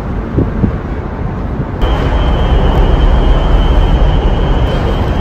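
Steady low engine rumble. About two seconds in it jumps louder and a constant high whine joins it.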